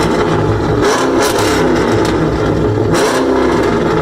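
Pontiac G8 GT's V8 revved hard through a loud exhaust, with surges of louder exhaust about a second in and again near three seconds.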